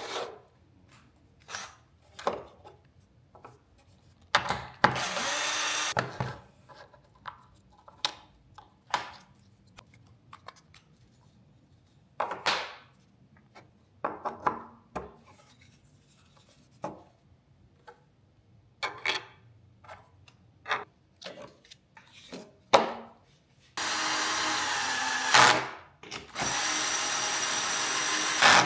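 Cordless drill/driver running in short bursts to drive mounting screws: once about five seconds in, then twice in a row near the end, each for one to two seconds. Between the runs, clicks and knocks of plastic parts and screws being handled and set down.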